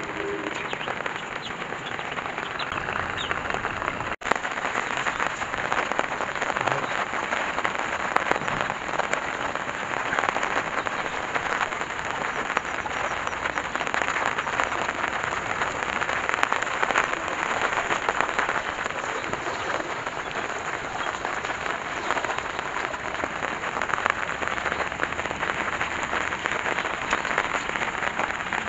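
Steady rain falling on shallow water and plastic sheeting, a dense, even spatter of drops that cuts out for an instant about four seconds in.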